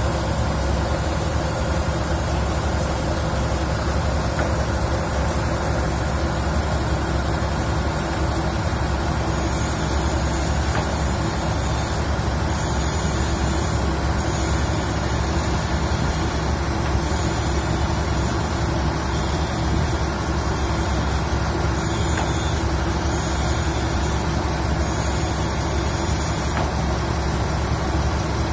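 Steady drone of heavy diesel machinery running on a pipeline spread. A faint high hiss comes and goes over it from about a third of the way in until near the end.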